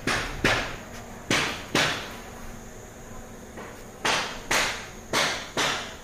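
A series of sharp knocks, about two a second in pairs, with a quieter pause near the middle.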